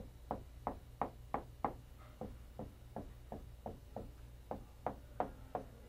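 Whiteboard marker tapping against the board as short tick marks are drawn along graph axes: a string of quick, light knocks, about three a second.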